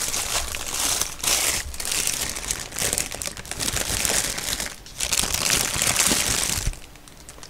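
Paper burger wrapper crinkling and rustling as it is peeled open around a burger, dying away shortly before the end.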